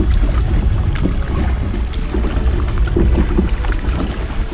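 Kayak paddle blades dipping and splashing in the water with each stroke, over a steady low rumble of wind buffeting the microphone.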